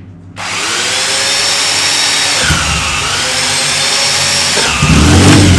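An electric starter motor whines as it cranks a classic air-cooled racing motorcycle engine over, its pitch dipping under load. Near the end the engine catches and runs loudly.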